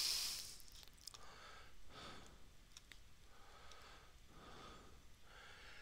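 A man breathing close to a headset microphone: a breathy exhale at the start, then faint slow breaths, with a few small clicks.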